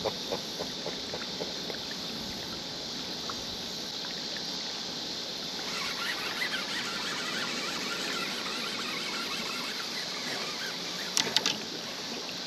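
Steady hiss of water and wind around a fishing kayak on a river, busier in the second half, with a few sharp knocks near the end.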